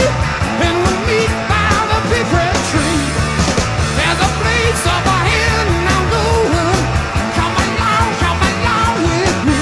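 Rock music with a sung vocal over bass and drums, playing steadily at a loud level as a soundtrack.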